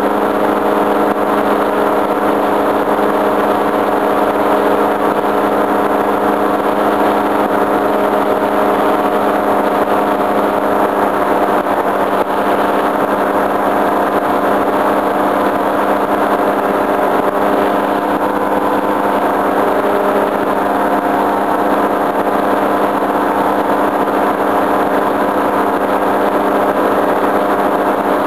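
Tandem paramotor trike's engine and propeller running steadily in flight, a constant, even drone close to the microphone.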